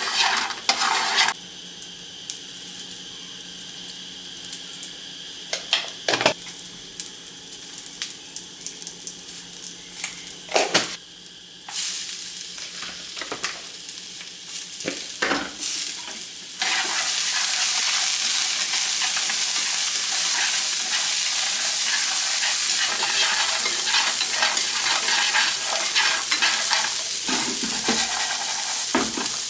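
Food frying in a pan, with scattered knocks and scrapes of a cooking utensil. About two-thirds of the way in the sizzle turns loud and steady.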